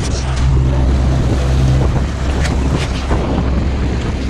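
Small boat's outboard motor running steadily under way, with wind buffeting the microphone and water rushing past the hull, plus a few sharp knocks.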